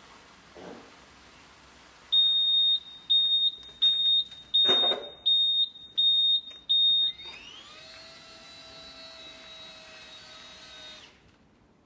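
Electronic beeper on a SIGNUM bedding-waste weigh station giving seven short, high beeps about two-thirds of a second apart. The unit's motor then hums, rising briefly in pitch and holding steady for about four seconds before cutting off.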